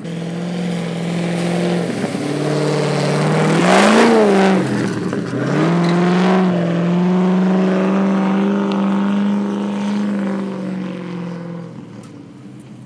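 Land Rover Discovery V8 engine driving under load through the river bed: the revs rise sharply about four seconds in, drop away, then build again and hold steady before easing off and fading near the end.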